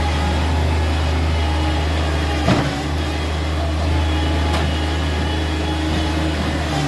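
Bobcat MT100 stand-on mini track loader's diesel engine running steadily under work, with a sharp metallic knock about two and a half seconds in as the bucket scrapes out the pen.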